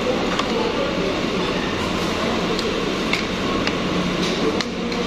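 Steady restaurant room hum with faint background voices, and a few light clinks of a metal spoon and fork against a plate.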